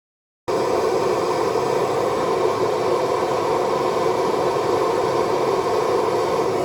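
A steady, even machine noise that starts abruptly about half a second in, with no clear pitch or rhythm.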